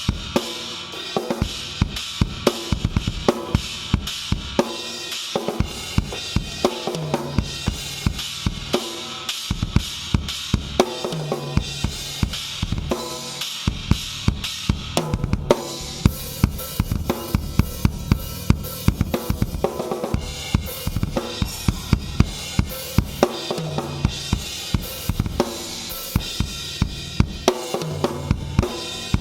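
Tama Starclassic acoustic drum kit being played in a continuous groove of bass drum, snare and cymbals, with the cymbals coming in brighter about halfway through. The drums are only roughly tuned, by the player's own account.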